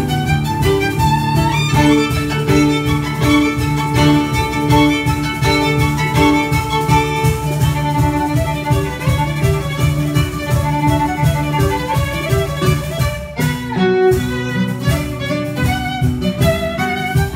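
Instrumental ensemble: a violin plays a melody over a strummed nylon-string classical guitar, with a steady hand-played beat from an aFrame electronic frame drum. The music breaks off for a moment a little after 13 seconds in, then comes straight back.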